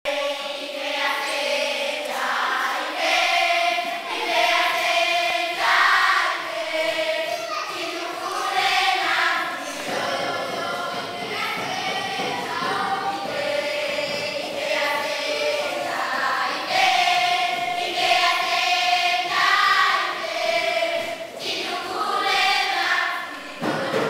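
A choir of children singing a traditional Malawian greeting song together, in short repeating phrases.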